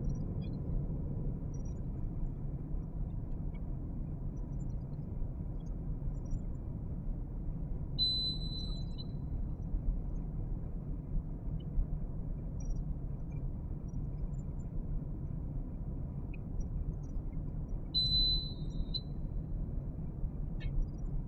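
Steady low room hum, with a short high electronic beep about eight seconds in and again near the end, repeating about every ten seconds.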